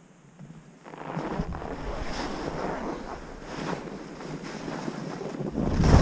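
Skis hissing and scraping over firm snow as the skier heads downhill, mixed with wind rushing over the microphone. It starts about a second in and grows louder near the end as speed builds.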